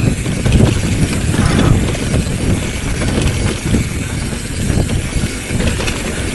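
Bicycle rattling and knocking over a rough dirt trail, with a heavy, uneven low rumble.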